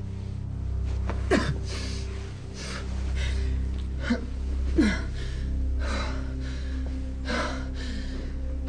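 A woman panting hard and gasping about once a second, with two short falling moans, one about a second in and one near the middle, over a low sustained music drone.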